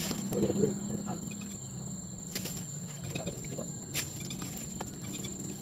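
Night insects, crickets, trilling as one steady high tone over a low steady hum, with a few sharp clicks and knocks from hands working a plastic basket and bucket.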